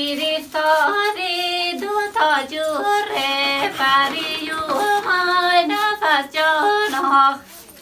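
A female voice singing a melodic song, with long wavering held notes and short pauses between phrases.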